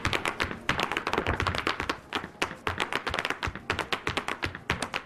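Irish dance hard shoes beating rapid, rhythmic taps on a hard floor, many clicks a second, with a brief lull about two seconds in.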